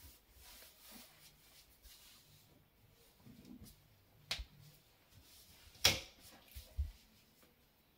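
Soft footfalls of stockinged feet on a hardwood floor, with two sharp clicks, the second and louder one about six seconds in.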